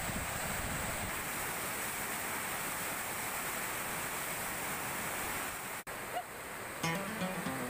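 Fast river whitewater churning below a weir: a steady rushing of water. It cuts off abruptly about six seconds in, and background music comes in just before the end.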